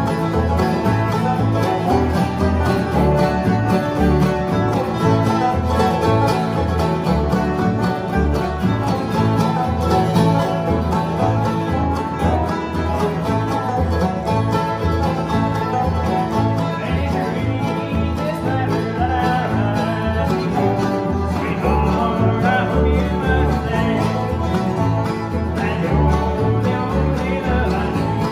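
Bluegrass band playing live on acoustic guitars, mandolin, banjo, resonator guitar (dobro) and upright bass, the bass plucking a steady beat underneath the picking.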